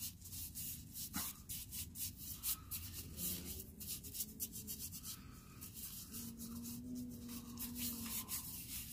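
Nitrile-gloved hands rubbing boiled linseed oil into a wooden mulberry mallet, a soft, irregular rubbing of glove on oiled wood.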